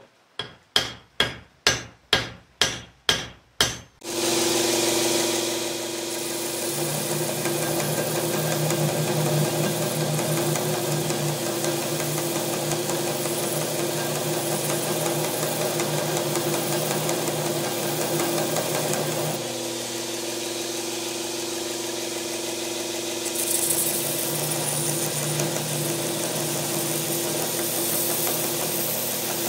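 About eight sharp hammer blows, a little over two a second, on a hatchet head clamped in a vise as it is set on its handle. Then a belt grinder runs steadily while the hatchet's steel head is ground on the belt; the grinding sound thins for a few seconds past the midpoint and then comes back.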